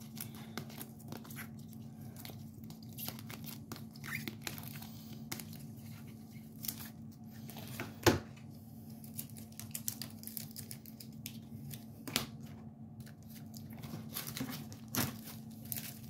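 Hands handling trading cards and their pack wrapper: scattered soft rustles and clicks, with a few sharper clicks about eight, twelve and fifteen seconds in, over a low steady hum.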